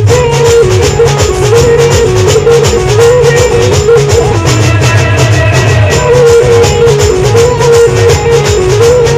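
Loud band music: a lead melody stepping up and down over a repeating bass line, driven by a quick, steady drum beat.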